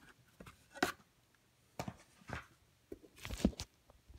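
Handling of wooden cigar boxes and a thin tissue sheet: a few separate short knocks and paper rustles, the loudest a dull thud about three and a half seconds in.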